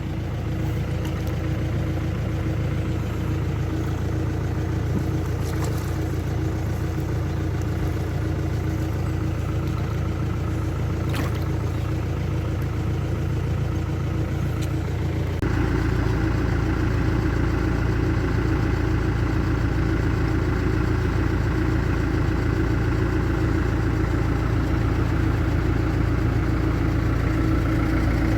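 A vehicle engine running steadily, with a sudden step to a louder, fuller running note about fifteen seconds in.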